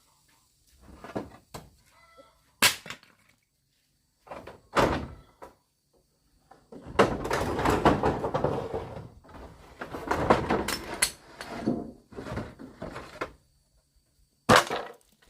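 Handling of materials while a house is being repaired: a few sharp knocks and thuds, with a long stretch of rustling and clattering in the middle and one more sharp knock near the end.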